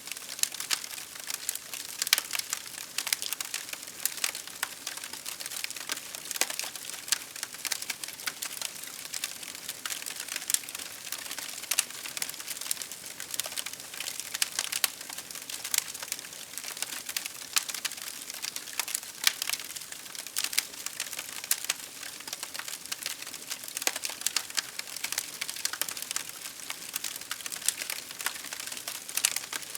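Wood fire crackling steadily, with frequent sharp pops and snaps at irregular intervals over a soft hiss.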